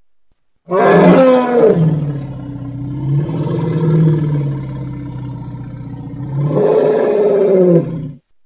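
Imagined call of an extinct American mastodon, a sound-effect reconstruction: one long, low, pitched call. It starts loud about a second in and falls in pitch, holds low and steady, then swells and falls again near the end before it cuts off.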